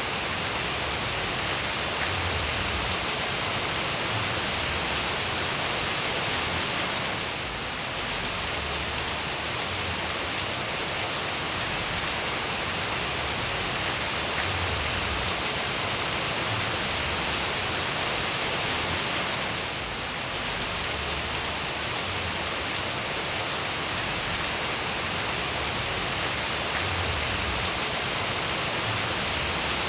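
Steady rain falling, an even hiss of many drops that dips slightly twice.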